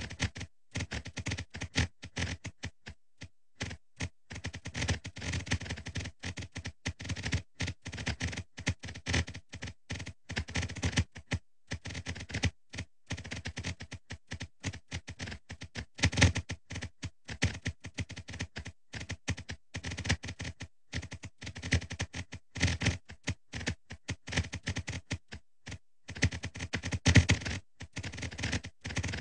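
Earthquake sonification clicks: a rapid, irregular stream of short clicks, one for each quake circle popping up on the map, with louder clicks for bigger earthquakes. The loudest clusters come about halfway through and near the end.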